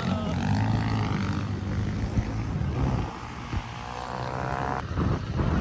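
Motorcycle engine running steadily under way, a low drone with a whine that fades after about 3 seconds.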